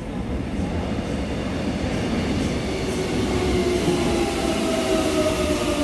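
Seoul Subway Line 8 electric train pulling into the station, its running noise building as it comes in. About halfway through, a whine sets in that falls slowly in pitch as the train brakes to a stop.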